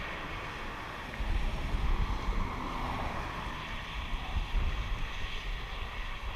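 Wind buffeting the microphone with a low, flickering rumble, over a steady rushing hiss that swells a little about a second in.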